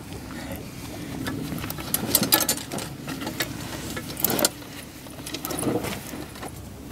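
Things being rummaged in and handled in a bag on a table: rustling with scattered sharp clicks and clinks, the loudest about two seconds and four seconds in.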